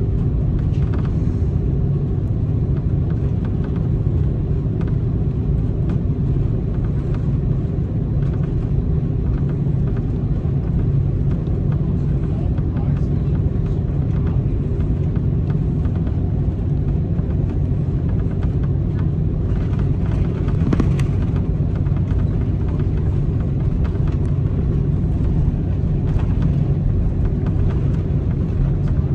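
Steady low rumble of an Airbus A330 heard from inside the passenger cabin: jet engine and airframe noise.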